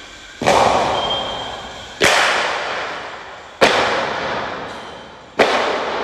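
Weight plates coming off a barbell one at a time and landing with four loud bangs, roughly one every 1.7 seconds, each ringing out before the next.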